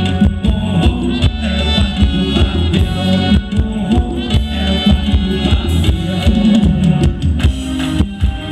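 Amplified live band playing Thai ramwong dance music with a steady beat.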